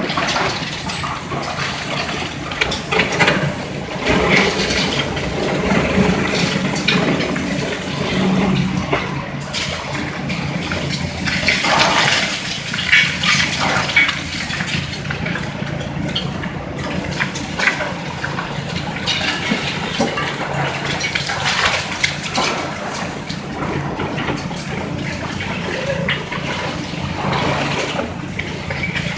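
Demolition excavator with a hydraulic crusher jaw breaking up the concrete viaduct: its diesel engine runs steadily under irregular crunching and clattering of concrete and falling debris, over a continuous rushing hiss.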